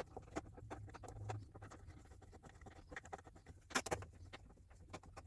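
An Allen key tightening the bolts that hold a table extension on a sliding mitre saw: irregular small metallic clicks and scrapes, with a louder pair of clicks about four seconds in.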